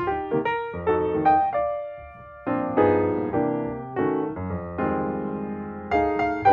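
Background piano music: a gentle melody of struck notes over chords, with a brief lull about two seconds in.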